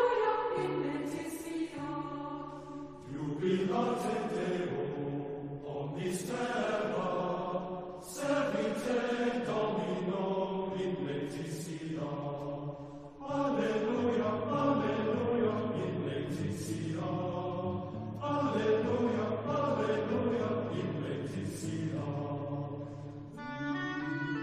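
Choir chanting in phrases a few seconds long over held low notes. Near the end the singing gives way to instrumental music.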